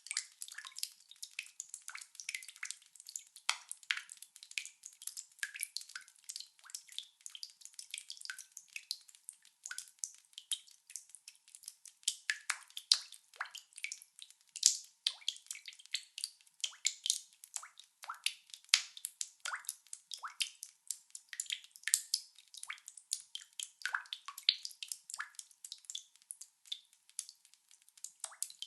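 Lots of water drops dripping fast and unevenly: a dense, irregular patter of small overlapping drips, several every second.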